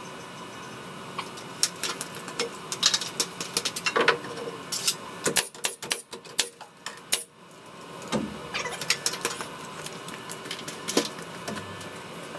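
Irregular clicks, knocks and light metallic clinks from hand work on the wooden roof-truss framing, in a scattered, uneven pattern with a short lull midway.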